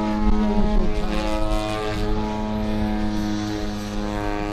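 The Desert Aircraft DA-120 twin-cylinder two-stroke petrol engine and propeller of a 35% scale Edge 540 RC aerobatic plane, running steadily in flight. The drone holds one steady pitch and grows a little quieter near the end.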